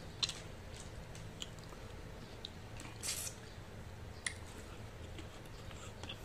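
Close, wet chewing of soy-sauce-braised chicken feet with rice: scattered small clicks and mouth smacks, with one longer, louder wet sound about three seconds in.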